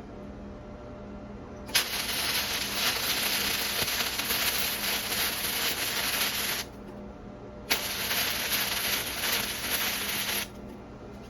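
Flux-core arc welding on stainless steel with an Arccaptain MIG160 set to DC electrode negative at about 40 amps: the arc crackles and hisses in two runs, about five and three seconds long, each starting with a sharp pop as the arc strikes.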